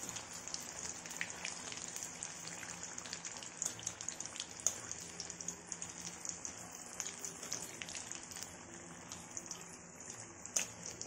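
Green chillies frying in hot oil in a kadhai: a steady sizzle with frequent small crackles and a couple of louder pops.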